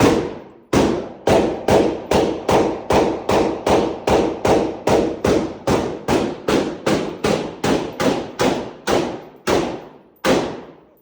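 Rapid semi-automatic gunfire: a string of over twenty shots at about three a second, spacing out to single shots near the end.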